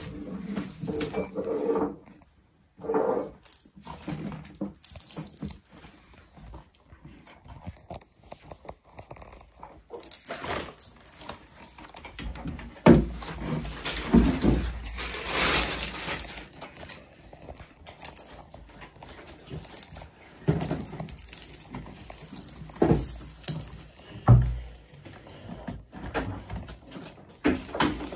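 Kittens playing with a plastic rattle ball on a carpet: the ball rattles and jingles in irregular bursts among scuffling paws, loudest while two kittens wrestle over it about halfway through. There are a few brief kitten cries in the first seconds.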